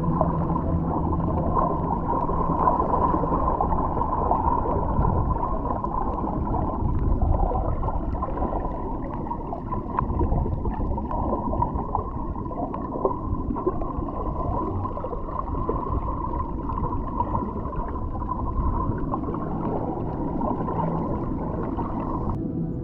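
Underwater ocean ambience: a dense low rumble with bubbling and gurgling, and faint steady low tones running through it.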